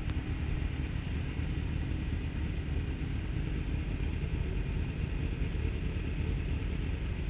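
Sportbike engines idling at a standstill, a steady low rumble heard through a camera mounted on the bike.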